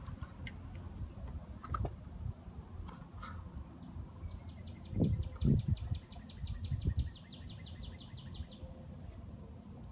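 A songbird sings a long, even trill of rapid repeated high notes, about seven a second, starting about four and a half seconds in and lasting about four seconds. Low rumbling bursts come underneath, loudest around five seconds in.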